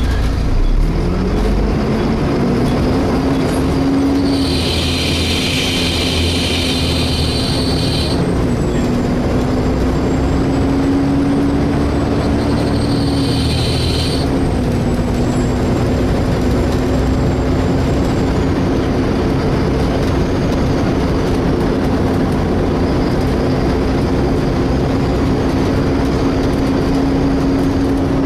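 Volvo B7TL bus heard from on board: its engine cooling fan gives a hoover-like whine that climbs in pitch over the first second and then holds steady. A loud high-pitched screeching noise sounds twice over it, for about four seconds starting around four seconds in and again briefly around thirteen seconds in.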